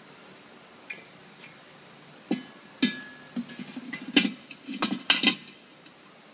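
A bent steel rod clinking and knocking against the metal pot of a solder dross separator: a quick run of sharp metallic knocks, some ringing briefly, starting a couple of seconds in and lasting about three seconds.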